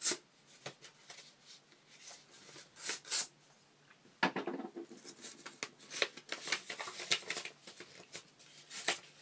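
A sealed paper envelope being torn open and the note inside handled: irregular paper tearing and rustling, with louder crackles around three and four seconds in.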